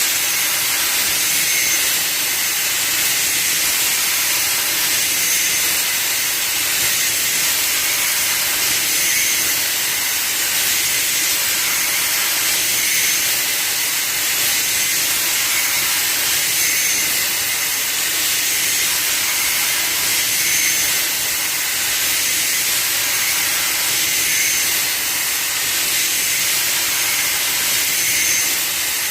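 CNC machine at work: a steady, even hiss with a faint short tone recurring about every four seconds.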